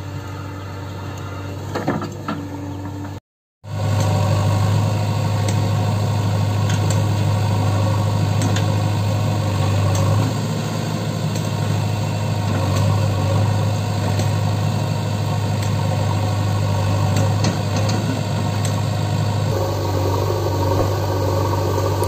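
Diesel engine of a JCB 3DX backhoe loader running steadily at close range, a loud, even low drone. About three seconds in the sound cuts out for a moment; before that the machine is heard more faintly.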